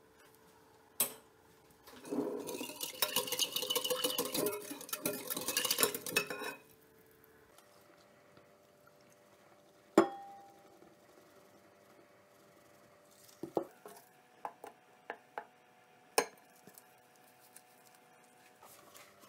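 Metal wire whisk beating a thin liquid in a glass bowl: a fast clinking rattle against the glass for about four and a half seconds. Later a single sharp knock, then a few scattered knocks of a wooden spoon against the glass bowl as the flour is mixed in.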